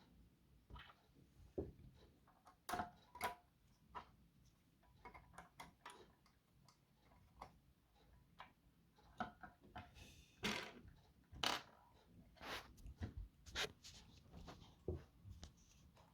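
Faint, scattered clicks and taps of a 1:18 diecast model car being handled and turned over, its plastic and metal parts knocking lightly. A few louder clicks come about ten and eleven seconds in.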